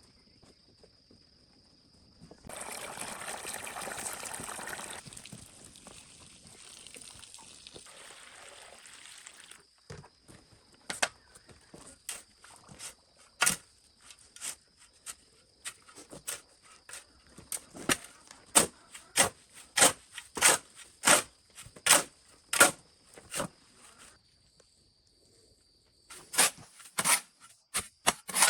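Water pouring or splashing for a few seconds and trailing off, followed by a long run of sharp, irregular knocks or strokes, about one or two a second, with a short pause near the end.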